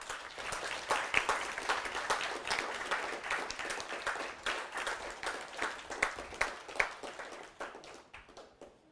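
Audience applauding, many hands clapping at once. It starts abruptly, then thins out and fades over the last couple of seconds.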